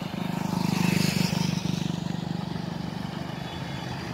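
A motorcycle rides past close by, its engine loudest about a second in and then fading. Under it and after it comes the steadier low running of a bus's engine as the bus approaches.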